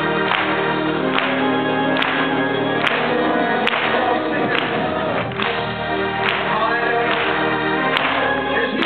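Gospel praise team singing together into microphones over accompaniment, with a sharp percussive hit on every beat a little under once a second.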